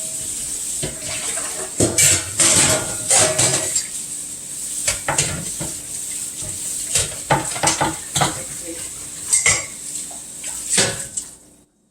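Two-part metal baking pan and its draining insert being washed, clattering and knocking together again and again over a steady hiss. The clatter stops abruptly near the end.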